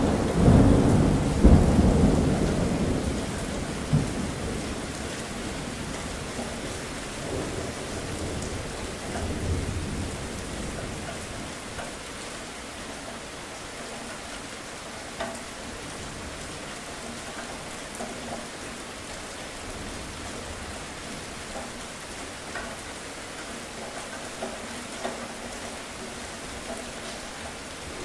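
Steady rain with thunder: a loud roll of thunder over the first few seconds that rumbles away, a fainter rumble about ten seconds in, then an even rain hiss with occasional louder drop ticks.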